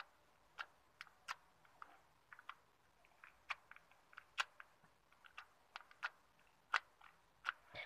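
Green slime being poked and squished by fingers in its tub, giving faint, irregular small clicks and pops, a few every second.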